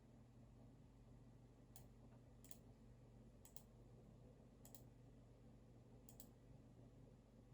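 Five sparse, sharp clicks from computer work at a desk, about a second apart and some of them doubled, over a faint steady low hum.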